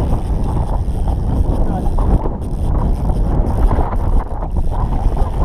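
Wind buffeting the microphone on a fishing boat: a steady, dense low rumble.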